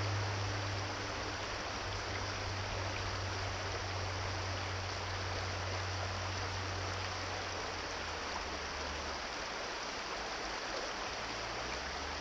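Shallow brook running over rocks, a steady rush of water through the riffles, with a low rumble underneath that fades out about eight seconds in.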